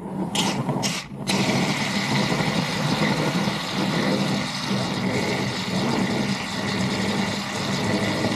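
Aerosol can of motorcycle chain cleaner spraying: two short bursts, then a long continuous hiss as the chain is sprayed down.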